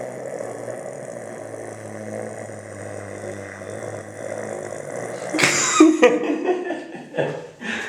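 A man snoring: one long, low, steady snore. About five seconds in it is cut off by a loud sudden burst, followed by a few short voice sounds.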